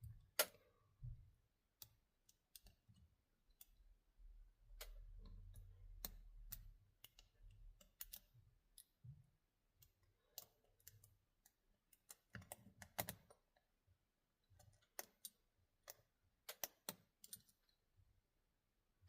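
Faint, irregular clicking of a lock pick and tension tool working the pins of a Brinks 5-pin padlock, with a low handling rumble about five seconds in.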